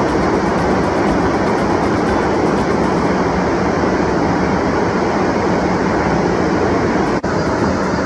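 Water pouring over a low weir: a steady, loud rush.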